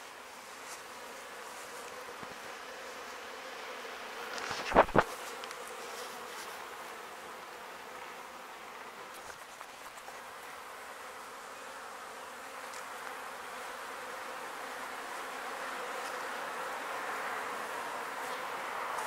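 Honeybees buzzing around their hives, a steady hum that grows louder near the end. About five seconds in, two sharp knocks in quick succession.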